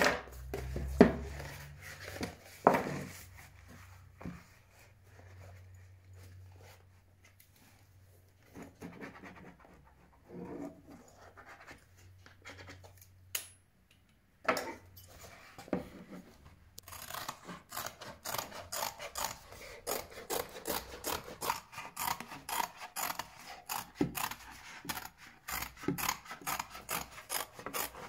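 A roll of leather is unrolled and handled on a wooden workbench, with a few knocks near the start and light rustling after. From just past the halfway point, steel scissors cut through the thick leather sheet in a quick, steady run of snips, about three a second.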